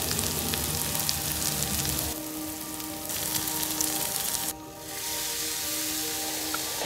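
Pieces of fish frying in hot oil in a pan, a steady sizzle that dips briefly twice.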